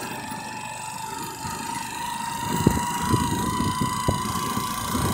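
Small motorcycle riding along a dirt street, its engine running with a steady high whine. Wind rumble on the microphone grows stronger about halfway through.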